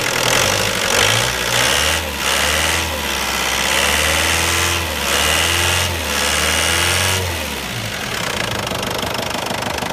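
Ford Transit van's engine being revved by hand at the throttle linkage in a series of short swells for about seven seconds, then settling back to a steady idle. It is running nicely.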